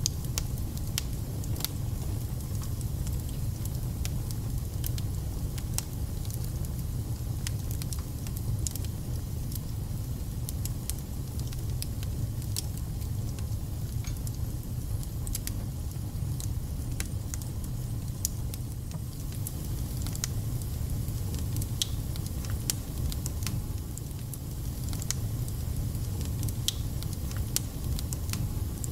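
Log fire burning in a fireplace: a steady low rumble with frequent sharp crackles and spits scattered throughout.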